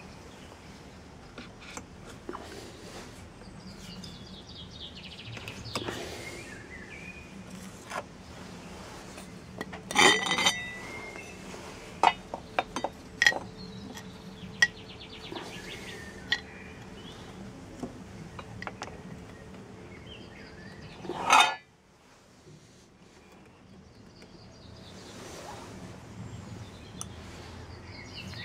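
Hard resin pieces and aluminium tubes clinking and knocking as they are handled and set down, with a few sharp knocks about a third of the way in, a run of small clicks just after, and one loud knock about three quarters through. Birds chirp faintly in the background.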